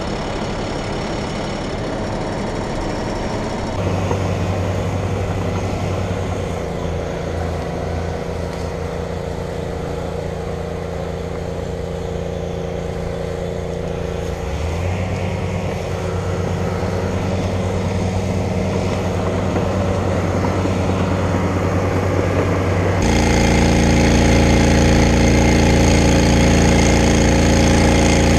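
Fire brush truck's engine running steadily, a constant hum with a slight rise in pitch about halfway through, growing louder and deeper near the end as the truck works the fire line with its pump feeding a hose.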